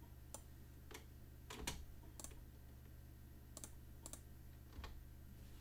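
Faint computer keyboard keystrokes and mouse clicks, about a dozen isolated taps spaced irregularly, over a low steady hum.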